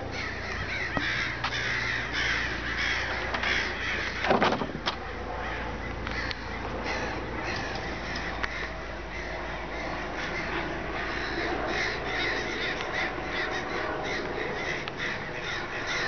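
A large flock of crows cawing all at once, a continuous overlapping din of calls as they mass for their nightly roost. A single thump about four seconds in.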